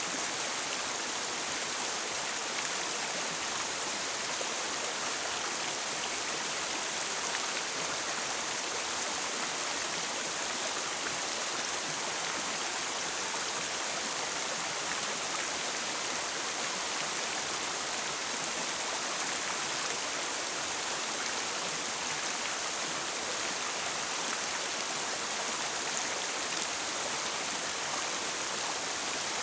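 A jungle river's water rushing and splashing in a steady, unbroken wash.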